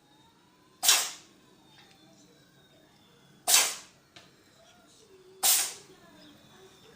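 A cat sneezing three times, each a short, sharp burst, two to three seconds apart.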